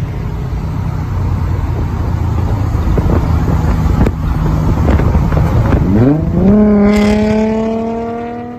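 Nissan 350Z's VQ35HR V6 through a full titanium Tomei exhaust, accelerating hard alongside: a loud, rough exhaust note for about six seconds, then the pitch climbs quickly and holds a steady drone that fades near the end.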